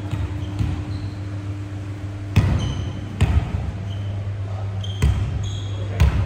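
Volleyball striking and bouncing on a wooden gym floor: four sharp thuds spread over the few seconds, with short squeaks of sneakers on the floor and a steady low hum underneath.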